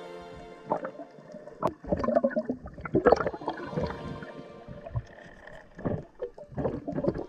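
Water sloshing and gurgling in irregular bursts, loudest about three seconds in.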